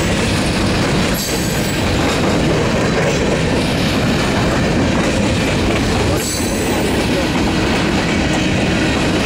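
Freight cars, tank cars and covered hoppers, rolling past close by: a steady loud rumble and rattle of steel wheels on the rails, with the clickety-clack of wheels over rail joints.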